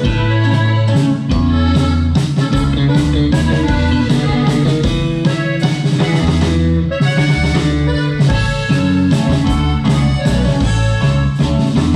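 Norteño band playing live: a button accordion carries the melody over electric bass and a drum kit keeping a steady beat.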